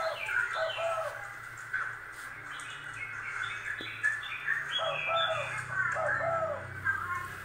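Animal chirping and cooing calls, bird-like: many short arching notes repeated in quick succession, with higher chirps among them.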